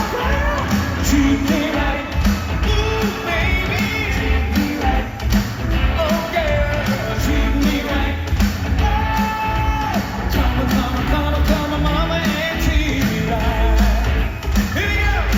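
Live pop band playing with a steady beat, and singing held on long, wavering notes without clear words.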